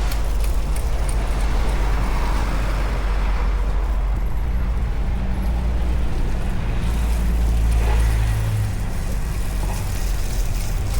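Street traffic: a motor vehicle's engine rumbling close by, its steady low hum cutting off about eight and a half seconds in.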